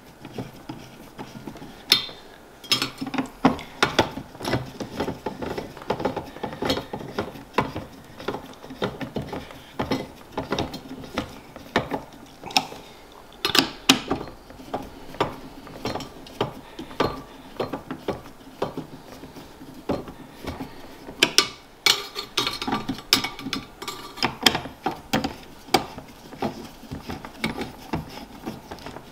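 Screwdriver turning the mounting screws of a Cooler Master Hyper 212 Black Edition CPU cooler down onto their standoffs: an irregular run of small clicks and scrapes, with a few sharper clicks. The screws are being driven a few turns at a time in a crisscross order until they bottom out.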